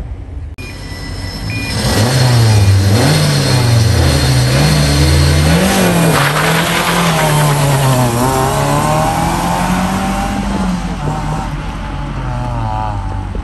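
Rally car engine revved high and held at the start line, then launched and accelerating hard away through the gears, the pitch climbing and dropping with each shift as it pulls into the distance.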